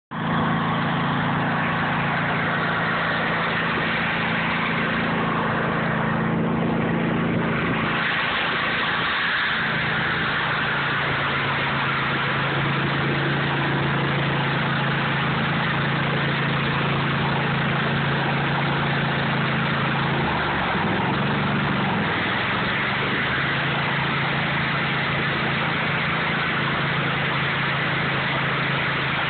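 Garden tractor's engine running steadily while its front-mounted snowblower throws snow, with a dense hiss over the engine note. The engine note drops and settles lower about 8 seconds in, then wavers briefly about 20 seconds in.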